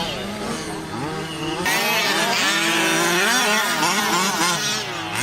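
Remote-control race cars' motors running, their high pitch repeatedly rising and falling as they rev. About a second and a half in, a loud rushing hiss joins them.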